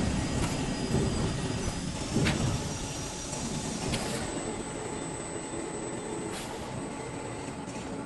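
CNC panel bender running: a steady mechanical rumble and whir, louder for the first few seconds, with a few sharp clanks as it works.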